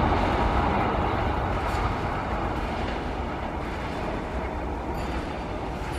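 Express train of LHB coaches running past at full line speed: a steady rush and rumble of wheels on the rails that slowly gets quieter.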